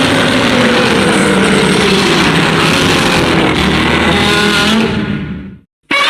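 Godzilla roar sound effect: a long, loud, gravelly roar that wavers in pitch. It fades out about five and a half seconds in, and after a moment of silence a new roar starts just at the end.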